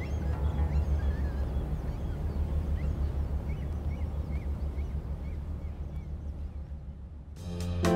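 Ferry engine rumbling low and steady, with gulls calling faintly a dozen or so times. Piano music starts near the end.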